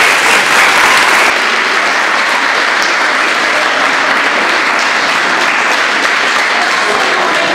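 Audience applauding, a dense, steady clapping that holds at full strength throughout.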